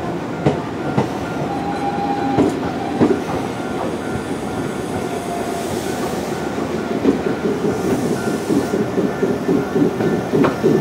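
Nankai Koya Line electric commuter train running along the station platform: a steady rumble of wheels on rail, with a rhythmic clickety-clack over the rail joints that grows stronger near the end.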